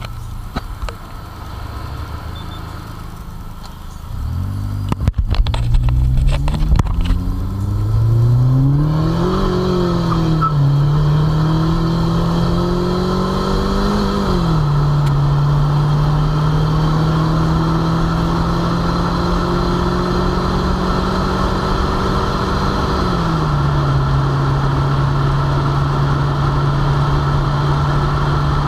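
Perodua Kenari's transplanted Daihatsu K3-VET 1.3 turbo four-cylinder under hard acceleration, heard from inside the cabin. The engine note climbs in pitch, drops at two gear changes and climbs again, then holds steady at high revs near top speed before stepping down once more a few seconds before the end. A few sharp knocks come in the first seconds of the pull.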